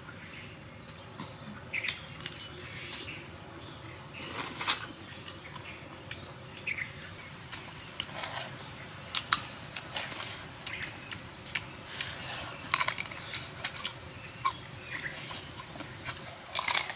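Scattered light clicks and clinks of eating utensils and dishes being handled during a meal, irregular and growing busier near the end.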